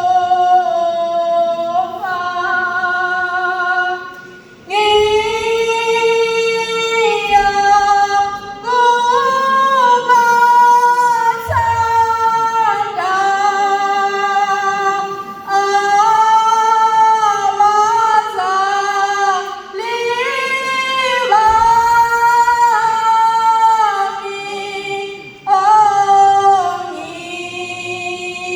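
A woman singing a Zulu song in long held notes that slide between pitches, in phrases of a few seconds with short breaths between them.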